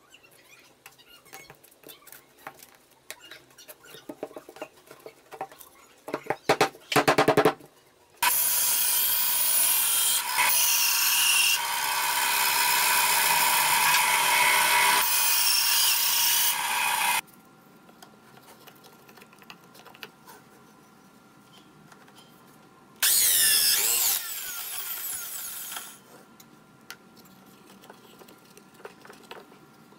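Benchtop band saw running and cutting through a wooden block, a loud steady noise lasting about nine seconds. Before it there are light handling taps and a brief rattling burst, and later there is a shorter burst of power-tool cutting that fades out.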